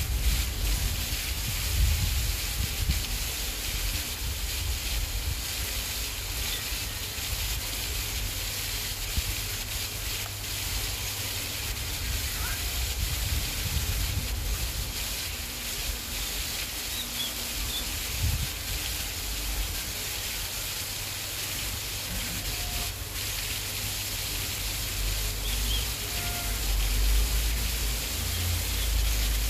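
Outdoor ambience: a steady hiss with gusty low wind rumble on the microphone, and a few faint short bird chirps.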